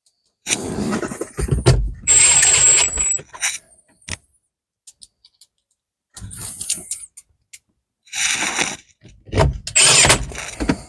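Plastic dash trim panels being handled and pressed into place around the radio: several bursts of plastic rubbing and creaking, with two short high squeaks.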